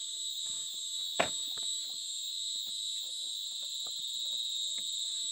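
Steady high-pitched chorus of insects, with a few faint ticks and rustles and one sharper knock about a second in.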